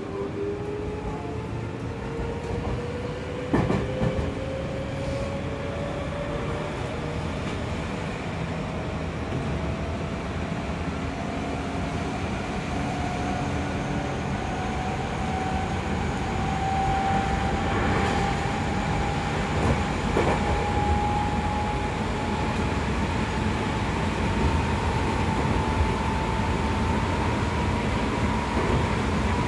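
Inside a Seibu 6000-series electric commuter train: the whine of its Hitachi GTO-VVVF inverter and traction motors climbs slowly in pitch as the train gathers speed, over a steady rumble of wheels on rail. A sharp knock comes about three and a half seconds in, with fainter ones later.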